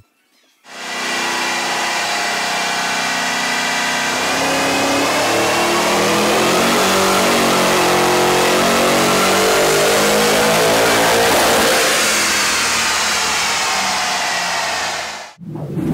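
Supercharged LS1 V8 in a Holden VU SS ute under full-throttle load on a chassis dyno, its pitch climbing steadily for about ten seconds, then falling away as it comes off the throttle, and cutting off suddenly near the end.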